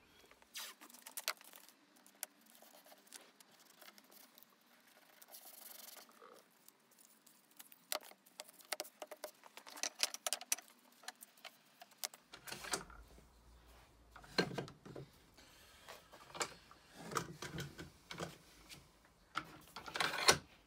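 Small wooden pieces and hand tools being handled on a workbench: scattered clicks, taps and rubs, with a louder clatter of knocks near the end as bar clamps are set.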